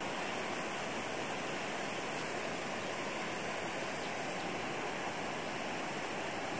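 Steady, even rushing wash of shallow water at the water's edge, with no distinct splashes.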